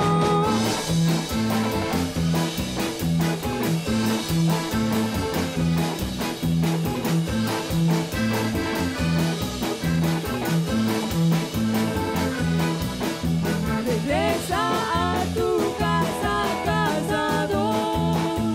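Background music with a steady, bouncing bass beat; a melody with sliding pitches comes in about fourteen seconds in.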